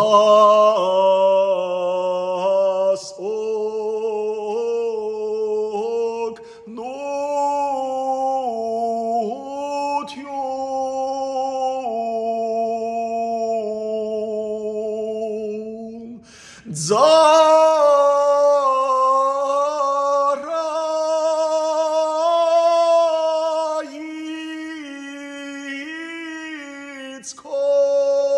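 A man singing an Armenian sacred chant solo and unaccompanied, in long held notes with a slow melody; about sixteen seconds in he breaks off briefly, then goes on at a higher pitch and louder.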